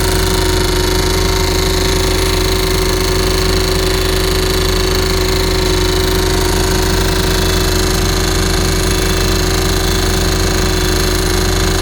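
Percussion rock drill (drifter) on a well-drilling rig hammering steadily through bedrock to deepen a groundwater borehole: a loud, unbroken fast rattle over a steady engine drone.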